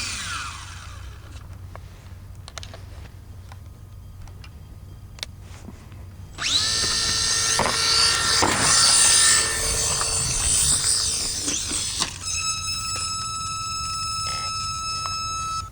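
Electric motor and propeller of an RC airplane: after a few seconds of light clicks, the motor spins up suddenly with a rising high whine about six seconds in and runs loudly. Near the end it settles to a steady high-pitched whine that cuts off suddenly.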